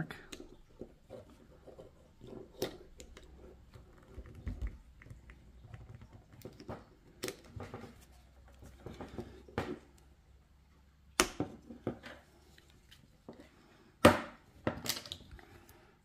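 Metal clicks and scrapes of a Swiss Army knife's screwdriver working under the red plastic handle scale of a Victorinox 111 mm pocket knife to pry it off, with a few sharp clicks about eleven and fourteen seconds in.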